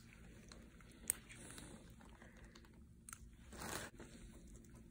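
Nearly quiet procedure room with a few faint clicks from surgical instruments handling the wound, a sharp one about a second in, and a short hissing noise about three and a half seconds in.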